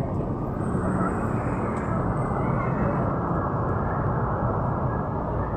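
Steady outdoor street noise, a continuous rumble of traffic with no distinct events.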